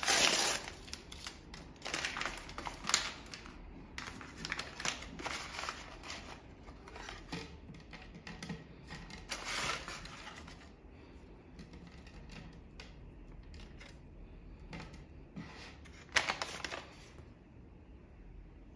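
Big League Chew bubble gum pouch crinkling as it is torn open and handled and the shredded gum is shaken out, in irregular bursts of crackling, loudest at the start and again near the end.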